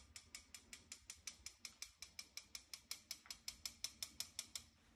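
A small knife tapping the handle of a fine-mesh sieve, about eight light metallic taps a second, shaking cocoa powder through the mesh a little at a time. The tapping stops just before the end.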